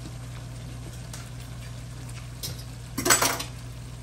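A brief clatter of kitchen utensils or cookware about three seconds in, with a smaller click just before it, over a steady low hum.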